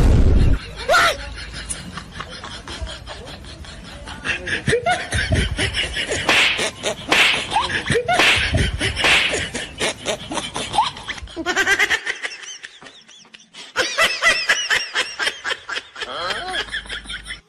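Loud, rapid bursts of laughter that break off briefly about twelve seconds in and then resume. It is opened by a sudden loud thump, the loudest moment.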